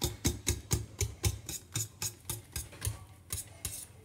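Wire whisk beating mashed potatoes in a pot, about four scraping, knocking strokes a second, easing off briefly about three seconds in.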